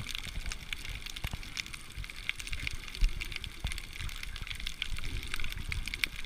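Underwater crackling of snapping shrimp on the reef, a dense popcorn-like crackle of many tiny clicks, over a low irregular rumble and thumping of water, with one sharper knock about three seconds in.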